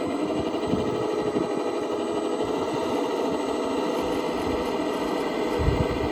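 Electric motor and geared drivetrain of an RC rock crawler running, a steady whine with occasional low thumps that are strongest near the end.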